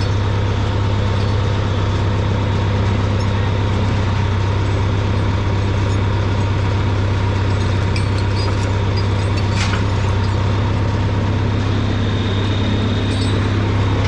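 Diesel engine of heavy logging equipment running steadily, a constant low hum with a few faint clicks over it.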